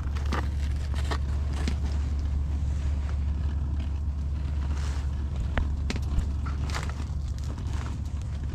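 Clicks and knocks of a walleye being handled and measured, over a steady low rumble.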